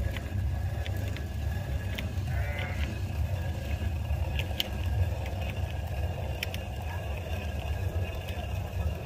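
Sheep and goats bleating over a steady low rumble, with a few short sharp clicks scattered through.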